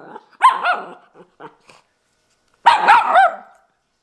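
Miniature schnauzer puppy barking: two short bursts of high barks that rise and fall in pitch, the first about half a second in and the second near three seconds in.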